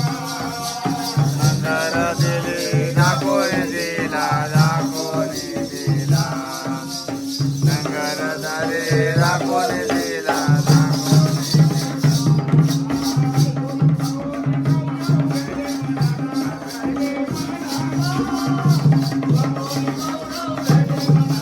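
Jakhadi folk music: a voice singing over a steady drum beat, with rapid rhythmic jingling percussion and a sustained drone. The singing stops about ten seconds in, leaving the drum, the jingling and the drone.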